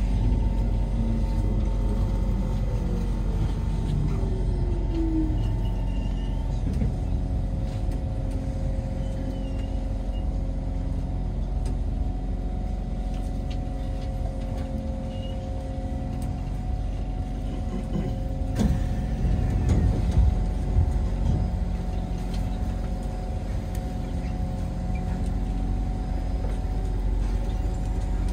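Interior running noise of a Kawasaki C151 metro train slowing into a station: a steady rumble with a motor tone that falls in pitch in the first few seconds. About two-thirds of the way through there are a few clunks and knocks as it comes to a stop.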